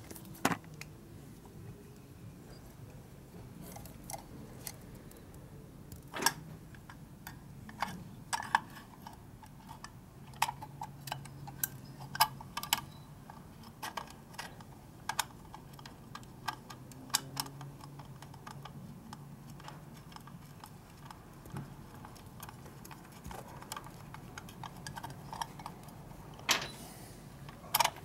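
Irregular small metallic clicks and taps of hands and tools handling the small parts of a Harley-Davidson Knucklehead's breaker-point ignition timer during reassembly, with a few sharper knocks among them.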